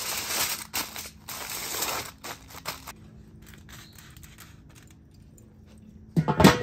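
Aluminium foil crinkling and crumpling for the first three seconds or so as a chuck roast is wrapped tightly in it. Near the end, a loud clank with a short metallic ring as the Weber kettle's steel lid is set down on the grill.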